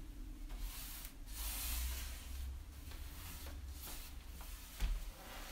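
Paintbrush brushing primer onto a bed frame's molding: a series of soft swishing strokes, the strongest a little over a second in.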